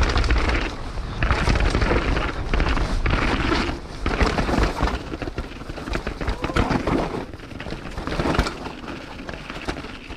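Downhill mountain bike tyres rolling fast over rocks on a rough trail, with many irregular knocks and wind rumbling on the action camera's microphone. The drivetrain is quiet, with no chain rattle. The noise eases off toward the end as the bike slows.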